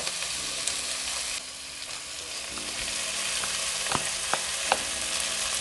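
Diced red onions and whole allspice frying in oil in a pot, a steady sizzle. Three light clicks come about four seconds in.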